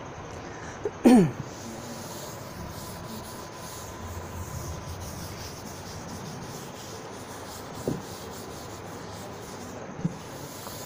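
Chalkboard duster rubbing across a blackboard, wiping off chalk writing. About a second in there is a brief, loud squeak that falls in pitch, and later a couple of small knocks.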